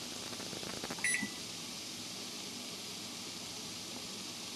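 A single short electronic beep from a kitchen appliance's keypad about a second in, after a few faint clicks, as a two-minute timer is set. A steady hiss runs underneath.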